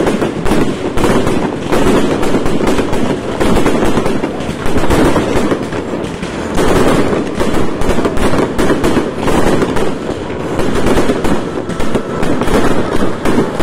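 Fireworks display in a dense barrage: loud shell bursts and crackling follow one another without a break.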